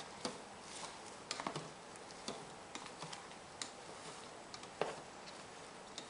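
A utensil tapping and scraping against the rice cooker's inner pot as cooked glass noodles and shrimp are tossed together: scattered, irregular light clicks and knocks.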